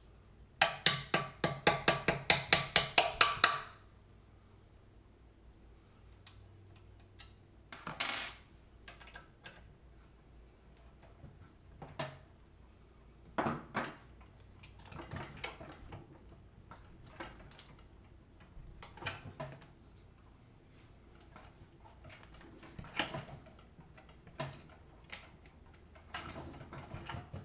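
Hammer rapidly tapping a skinny bolt to drive the governor arm shaft through the crankcase of a Honda-clone engine: a quick run of about five sharp metallic blows a second for some three seconds, followed by scattered single knocks and clinks of tools on the engine.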